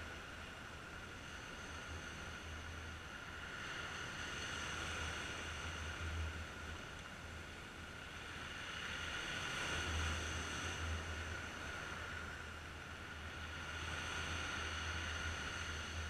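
Sea waves washing in over rocks and breaking, the surf swelling and fading about every five seconds, over a steady low rumble.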